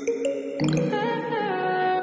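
Background music: a song's instrumental intro, with a few bright struck notes near the start and about half a second in, then held melody notes.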